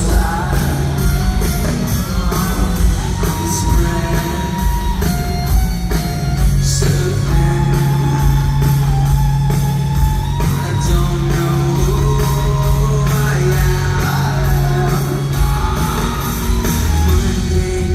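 Live rock band playing loud: distorted electric guitars, bass and a steady drum beat, with singing.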